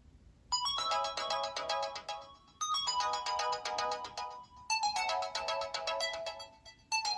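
A Nokia 808 PureView ringtone playing: a quick melodic phrase of short, bright notes that starts about half a second in and repeats roughly every two seconds.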